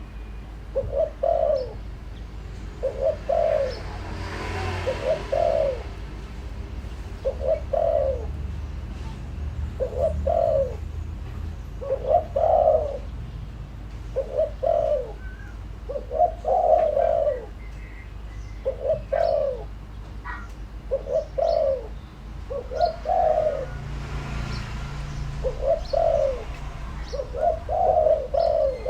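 Decoy spotted dove cooing: short, low coo phrases repeated every second or two in a steady run, the calls used to lure wild doves.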